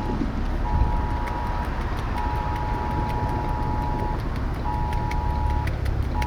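A mobile phone's Wireless Emergency Alert attention signal: two tones sounding together, pulsing on and off with short gaps, one beep twice as long as the others. It plays over the low rumble inside a vehicle cabin.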